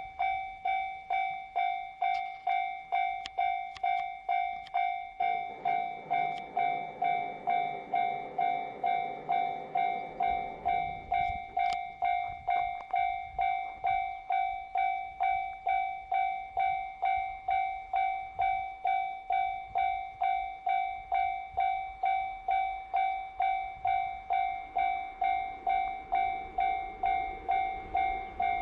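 Japanese level crossing warning bell ringing steadily, about two strikes a second. About five seconds in, a JR Hokkaido KiHa 261 series diesel train sounds a long horn blast of about five seconds, then the low rumble of the train passing builds under the bell.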